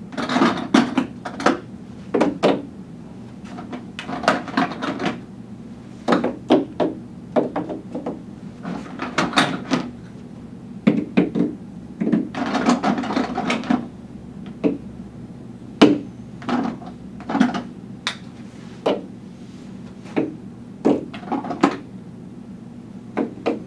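Small doll-chair parts being grabbed from a plastic bucket and set down one after another on a tabletop parts mat, making quick, irregular clattering knocks and clicks.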